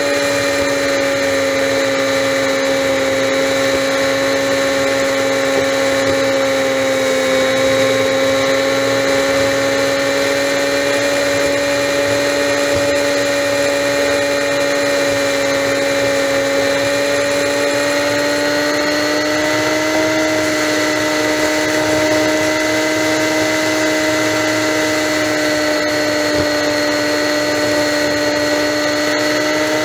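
Honda Magna V4 motorcycle engine running steadily at highway cruising speed, a constant engine note with wind rush underneath. The pitch rises slightly about two-thirds of the way through.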